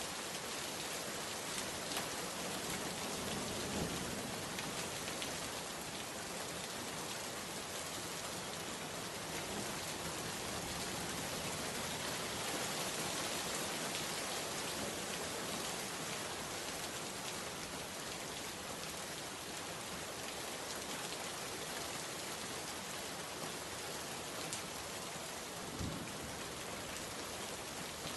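Steady, dense rainfall pattering on surfaces, with a couple of brief low thumps, one a few seconds in and one near the end.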